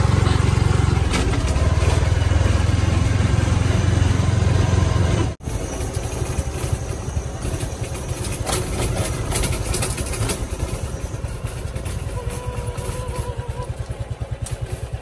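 Motorcycle-sidecar taxi's engine running while it carries passengers, with a loud, steady low rumble. About five seconds in the sound cuts to a quieter, evenly pulsing engine note as the ride slows into the parking area.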